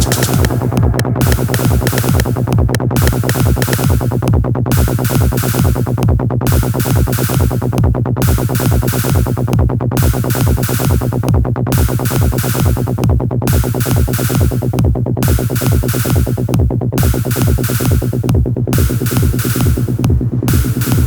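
Live electronic techno from a drum machine and analog synthesizer: a steady driving beat over a loud sustained bass line, with the high end cutting out briefly about every two seconds.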